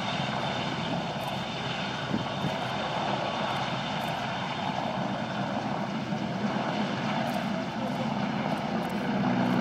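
RAF Merlin (AW101) three-engined helicopter lifting off and climbing away. Its turbines and rotor make a steady noise with a faint high whine, a little louder near the end.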